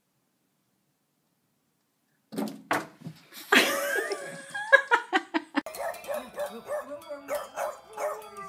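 Silent for the first two seconds, then a few sharp knocks and a loud noisy outburst. After that, a small flat-faced dog howls and yips in short cries that bend up and down, along with a toddler hitting keys on an electric keyboard.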